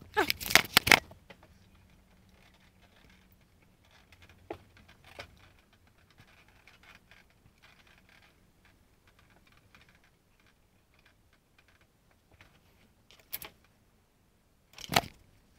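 A rubber handlebar grip being pushed and twisted onto a scooter handlebar: a loud burst of rubbing and scraping in the first second, faint clicks and scuffs through the middle, and two more short bursts of rubbing near the end.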